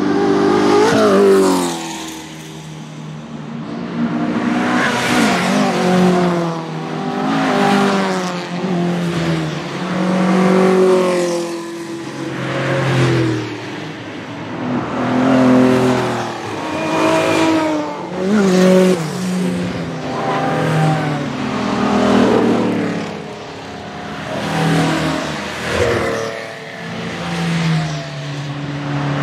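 Historic race car engines accelerating hard, the pitch climbing and dropping repeatedly as if through gear changes. The engine noise swells and fades about every two to three seconds.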